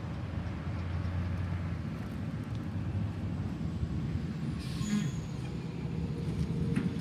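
Rear-loader garbage truck's diesel engine running steadily as the truck drives past, with a brief high hiss of air about five seconds in.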